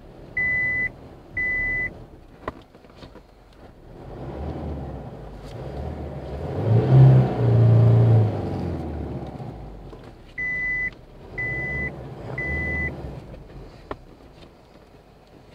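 Isuzu D-Max pickup's reverse-gear warning beeps, three short beeps about a second apart. Then its 3.0-litre diesel engine revs up and falls back as the truck tries to reverse out of the mud it is stuck in. Three more beeps come near the end.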